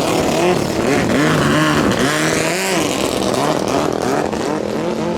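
Racing boat engines revved in short throttle blips, their pitch rising and falling every half second or so, with several engines overlapping. Near the end one engine settles to a steady note.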